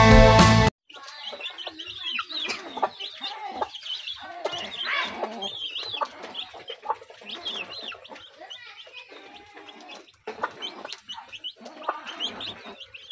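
Guitar music cuts off abruptly about a second in. Then a brood of young chicks peep busily, with many short high cheeps overlapping one another.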